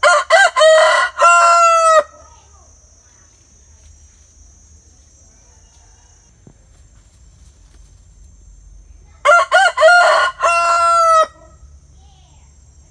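A rooster crowing twice, the second crow coming about nine seconds after the first. Each cock-a-doodle-doo is a few short notes followed by a long held final note of nearly a second.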